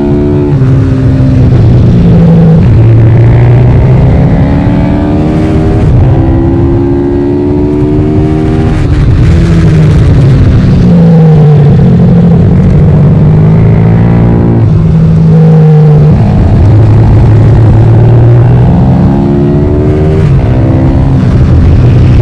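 Pit bike's single-cylinder four-stroke engine heard from on board at racing speed, winding up through the gears and falling back several times as it brakes into corners and accelerates out. A constant rush of wind noise runs under it.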